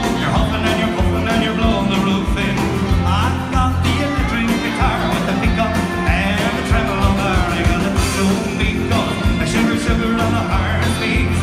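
Live band playing an upbeat song: a male singer over electric guitar, bass and drums with a steady beat.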